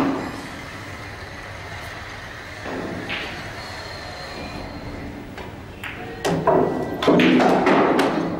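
Pool balls clicking: a cue striking the cue ball and balls knocking together, a few sharp knocks about five to six seconds in. Louder background voices follow near the end.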